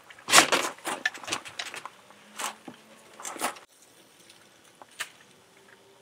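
Wooden spoon knocking and scraping against a stainless steel pot as food is stirred and moved in it: a few short sharp clatters, the loudest just under half a second in, then sparser, quieter taps.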